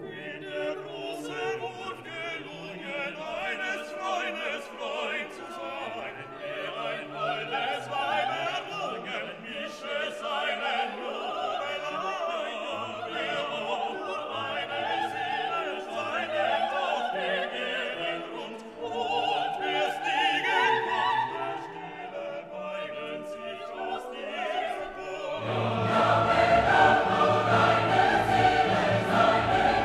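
Operatic classical music, singing over an orchestra; about 25 seconds in it swells louder and fuller.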